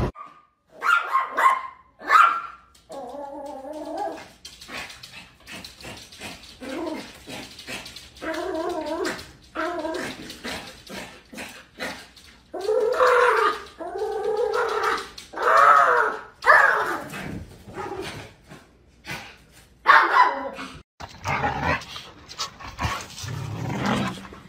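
Dogs vocalizing: short sharp barks mixed with drawn-out whines that bend up and down in pitch, the longest run of whining about halfway through.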